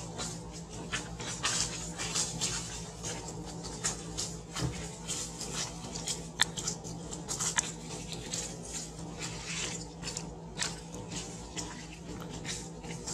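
Dry leaf litter crackling and rustling in short, irregular crunches as macaques move and shift over it, with a steady low hum underneath.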